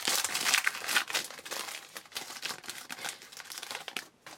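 Trading card pack wrapper being torn open and crinkled by hand, loudest in the first second or so, then thinning to scattered crackles.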